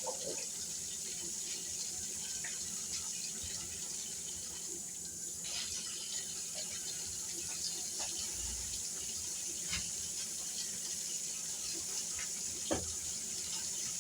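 Kitchen tap running steadily into a sink, with a few light knocks, the clearest near the end.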